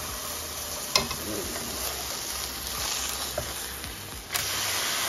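Ground-beef burger patties sizzling steadily in a hot frying pan, with a metal spatula clicking against the pan about a second in. A little after four seconds a sharper knock comes as a patty is flipped, and the sizzling gets louder.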